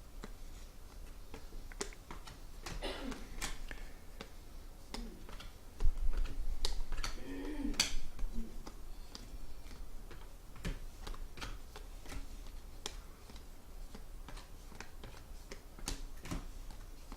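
Trading cards being handled and flipped through: a run of light clicks and taps, with a low bump about six seconds in.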